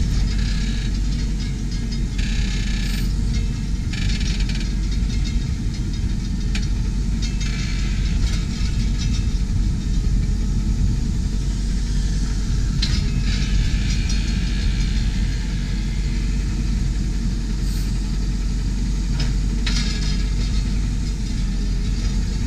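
Massey Ferguson 7720 tractor running steadily while its Monosem NG 4 Plus 12-row planter folds its wings up, with a few brief rattles from the moving frame.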